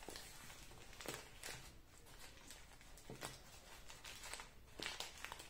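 Faint rustling and crinkling of a crumpled newspaper ball being wrapped in adhesive tape and pressed by hand, with a few soft scattered ticks and scrapes.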